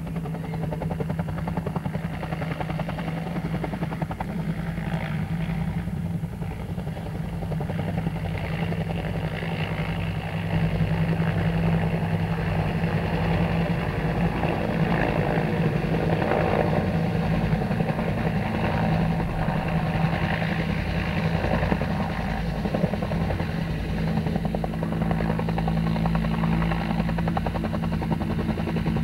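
Swedish Air Force Hkp 3 (Agusta-Bell 204) helicopter hovering and flying low, its two-bladed main rotor beating steadily over a continuous engine hum. It gets louder about ten seconds in.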